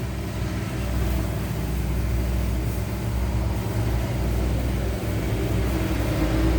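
A steady low mechanical hum with a wash of noise over it, like a motor running.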